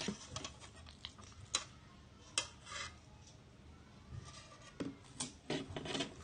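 A metal spoon clinking and scraping against a ceramic plate in a string of short, irregular knocks as the last noodles are gathered up.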